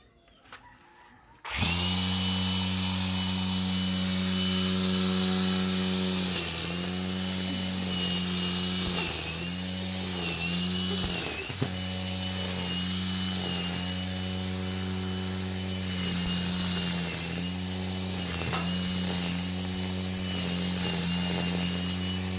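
Electric angle grinder switching on about a second and a half in and running steadily at speed with a high whine. Its pitch sags briefly several times as the spinning blade takes load cutting into the grass, then recovers.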